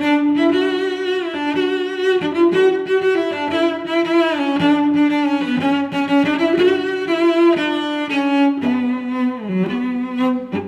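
Slow instrumental music led by a bowed string instrument, a cello-like melody of long held notes that slide from one pitch to the next.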